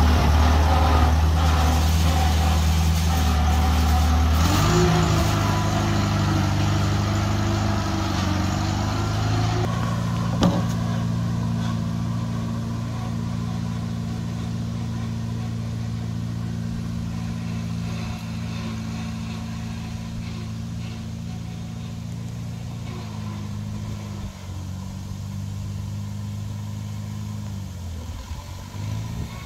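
Farmall Cub tractor's small four-cylinder flathead engine running steadily, its engine speed shifting about four seconds in, then fading gradually as the tractor drives away.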